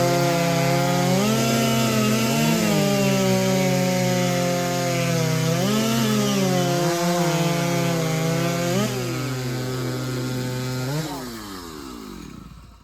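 Large-displacement (over 90cc, 5.5 cubic inch class) racing chainsaw at full throttle, cutting through a log in a timed race cut. Its pitch dips and recovers several times under load. Near the end the engine note falls steadily and dies away.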